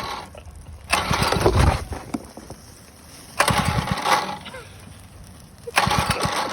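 Small gasoline engine firing in three short bursts of about a second each, cutting out between them.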